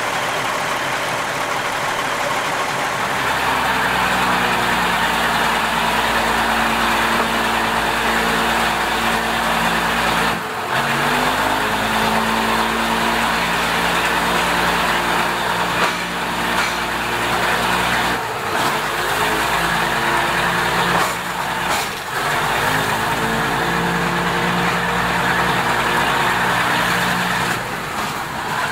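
Diesel railcar engine running under way, over steady wheel-on-rail noise. Its note drops out briefly four times and climbs in pitch again after each break, the pattern of the railcar changing gear.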